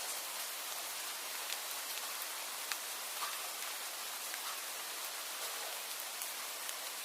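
Steady rain falling: an even hiss of drops, with scattered sharper individual drop hits standing out every second or so.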